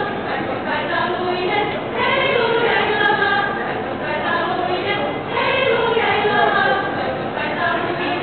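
Women's choir singing a cappella in several parts, with long held notes in phrases that change every two or three seconds.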